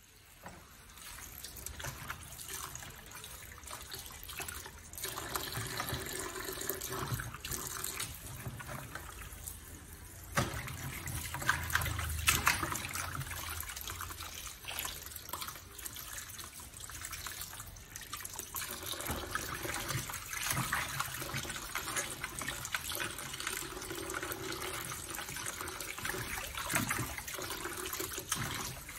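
Hands washing vegetables in a plastic basin of water in a steel sink: irregular splashing and sloshing with the odd knock, louder from about ten seconds in for a few seconds.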